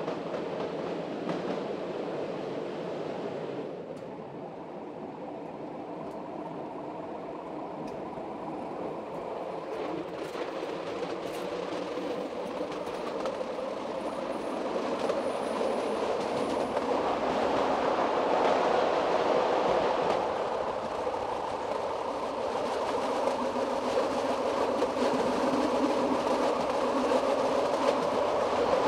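Metre-gauge train running along the track, a steady rolling rumble of wheels on rail with a light clickety-clack, growing gradually louder after the first few seconds.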